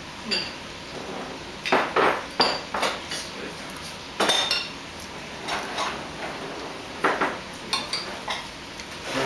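Eating utensils clinking and tapping against tableware bowls and plates during a meal, in irregular clinks, some with a brief ringing.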